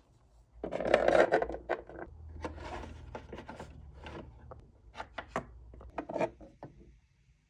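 Irregular rubbing and scraping with scattered sharp clicks, stopping about seven seconds in.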